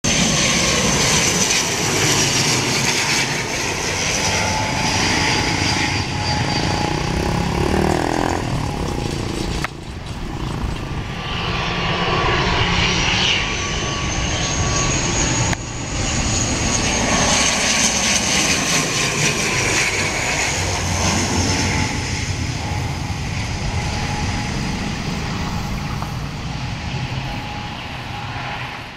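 ATR 72-600's Pratt & Whitney PW127M turboprop engines and propellers passing low on final approach to land: a loud, steady drone with whining tones that slide in pitch as the aircraft goes by. The sound breaks off abruptly twice, at about ten and sixteen seconds, and grows fainter near the end as the aircraft is out on the runway.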